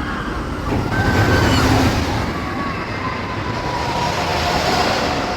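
Sky Rush wing roller coaster train running along its steel track: a heavy rumble that swells about a second in, with thin high whines over it.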